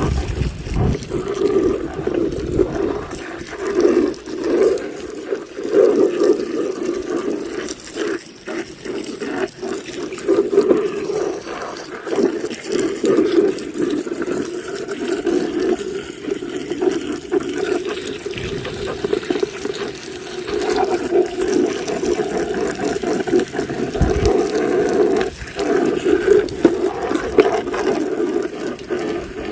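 Water running and splashing steadily as a mud-covered toy vehicle is washed under it.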